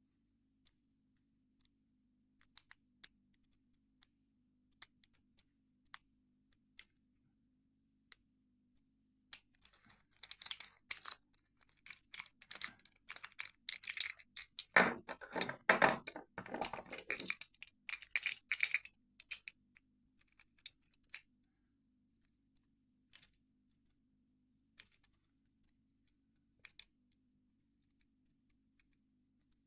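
Homemade lock picks and tension tools clicking and scraping in a Squire 660 padlock. Sparse light ticks turn, about ten seconds in, into a dense run of metallic clicking and rattling lasting about ten seconds, then thin out to occasional ticks.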